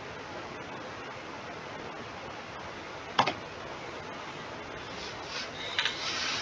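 Steady background hiss from an open microphone, with one sharp click about three seconds in and a few short, soft scuffing noises near the end.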